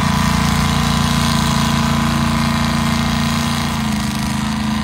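Lifted mud truck's engine running steadily under load as it crawls through deep mud, its note shifting slightly about four seconds in.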